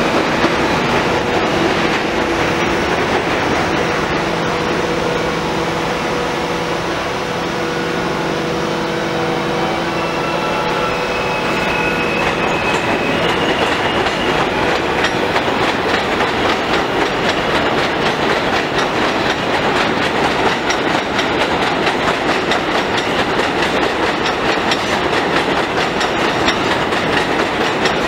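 New York City subway train of R160 cars running past on elevated steel track. For the first dozen seconds there is an electric whine with several steady tones, some stepping up in pitch about ten seconds in. After that comes a rapid, continuous clickety-clack of wheels over rail joints as the cars go by.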